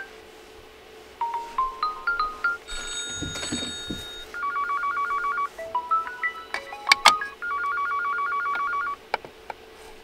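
Default preset ringtone previews from an Honor View 20 smartphone: a short rising run of electronic notes followed by a rapid two-tone trill, played twice. There is a sharp click about seven seconds in.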